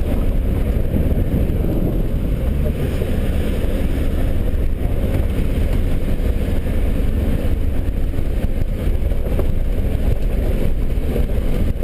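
Land Rover driving slowly on a rough dirt track, heard from inside the cabin: a steady low rumble of engine and tyres on the dirt.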